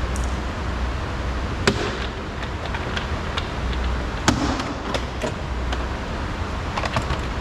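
Plastic door trim panel being lifted off a car door, with two sharp knocks about two seconds apart and lighter clicks and ticks of plastic between and near the end, over a steady low hum.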